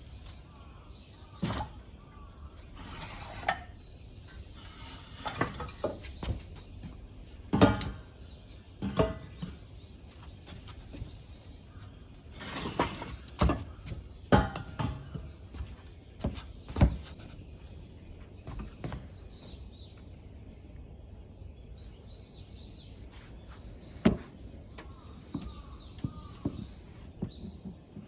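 Scattered sharp knocks and clinks, a dozen or so at irregular intervals, over a steady low background, with birds chirping faintly.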